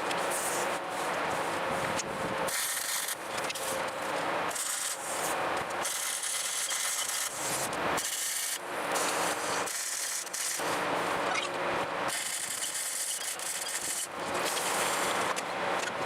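An abrasive tool rubbing against metal in repeated passes a second or two long, with brief dips between them.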